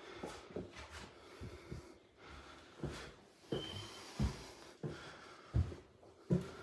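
Footsteps on bare wooden floorboards: irregular thuds, roughly one every half second to second, with a short high squeak about halfway through.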